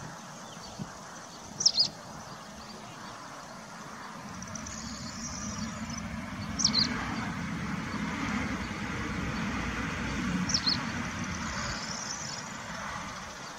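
Outdoor traffic rumble that swells through the middle, with three short, high bird chirps about four seconds apart standing out as the loudest sounds.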